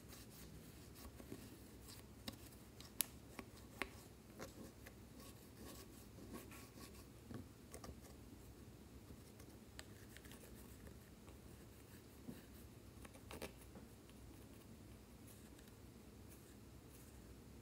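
Plastic spatula scraping pressed eyeshadow and blush powder out of a makeup palette: faint scratching with scattered light clicks.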